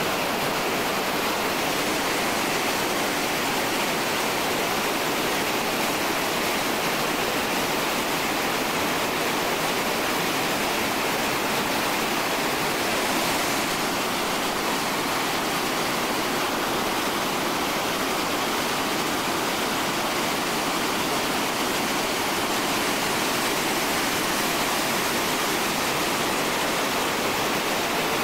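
Whitewater rapid of a large mountain river: the steady rush of churning water, even and unbroken throughout.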